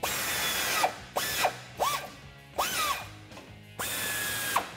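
Cordless power driver spinning a socket to run nuts down onto the bracket's studs and bolt, in several short trigger pulls. The motor whine rises and falls with each pull, with two longer, noisier runs at the start and about four seconds in.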